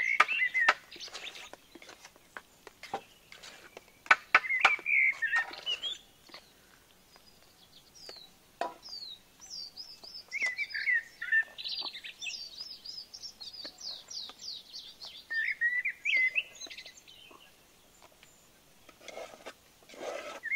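Birds chirping and singing throughout, with short calls and quick up- and down-sweeping whistles. In the first several seconds a wooden spoon gives a series of sharp knocks and taps against a clay cooking pot, and a brief scraping comes shortly before the end.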